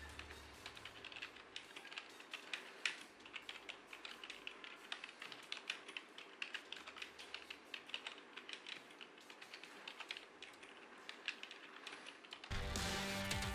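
Typing on a Royal Kludge RK71 mechanical keyboard with brown tactile switches: a quiet, irregular patter of keystrokes. Music comes in near the end.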